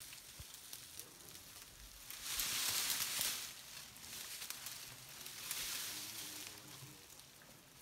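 Acacia branches and leaves rustling in two swells, with small cracks and snaps, as an African elephant pulls at them with its trunk to feed.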